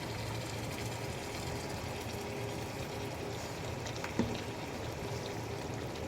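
Steady sizzling hiss of chicken and tomato-spice masala cooking in a karahi, with one short knock about four seconds in.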